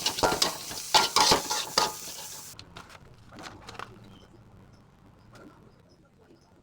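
Spatula stirring and scraping a sizzling stir-fry in a frying pan, with repeated clattering strokes against the pan, just after sweet soy sauce has been added. About two and a half seconds in the sizzle cuts off suddenly, leaving a few lighter taps that fade.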